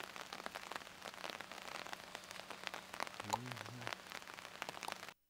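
A dense, even patter of many small crackles and drips, like rain falling on water and leaves. A man's voice speaks briefly about three seconds in.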